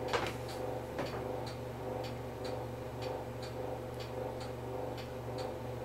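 Regular light ticking, about two ticks a second, over a low steady hum.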